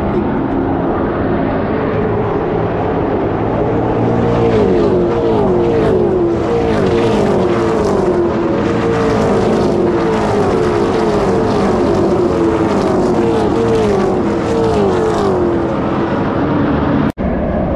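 NASCAR México Series stock cars' V8 engines passing close by in a pack, one after another, each engine note falling in pitch as it goes past. The field is running at pace speed behind the pace car in the laps before the green flag.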